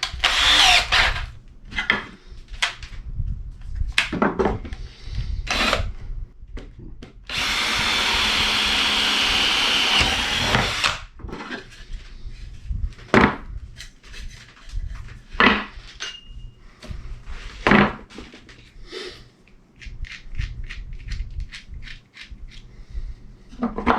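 Power drill boring a test hole in scrap wood with a bit just over 3/8 inch: one steady run of about three and a half seconds, starting some seven seconds in. Short knocks and clatter of handling the drill and wood come before and after it.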